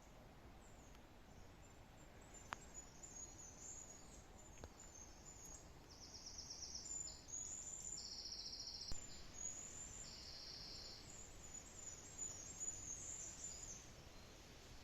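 Faint woodland birdsong: small songbirds giving high, thin chirps, with several short rapid trills about a second long, over a quiet background with a few faint clicks.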